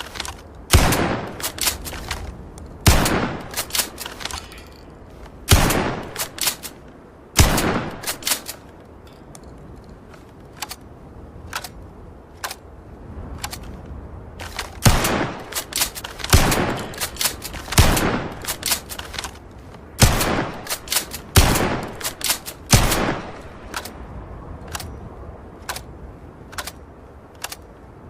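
Shotgun sound effect: about ten single loud blasts, spaced irregularly one to three seconds apart, each followed by a quick run of smaller mechanical clicks. Between about 9 and 14 seconds in there are only the small clicks.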